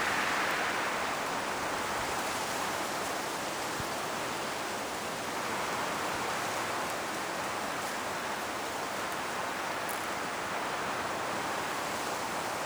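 Strong wind blowing through forest trees, a steady rushing of leaves and branches that swells and eases gently, with a few faint ticks and crackles of leaves.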